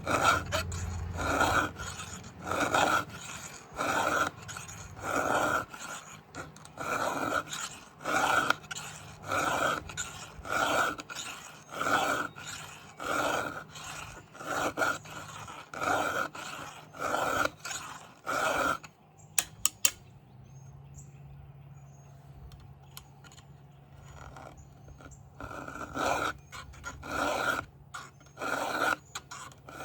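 Round file rasping across a Stihl MS 500i chainsaw chain's cutters in hand strokes, a bit over one a second. The strokes stop briefly about two-thirds of the way through, with a few sharp clicks, then start again near the end.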